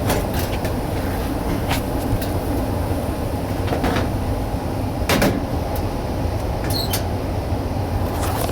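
Gas furnace running with a steady low hum, with several sharp knocks and clatters of handling, the loudest about five seconds in.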